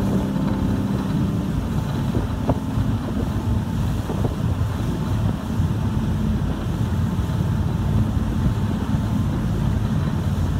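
Steady low rumble of a ferry under way, with wind buffeting the microphone.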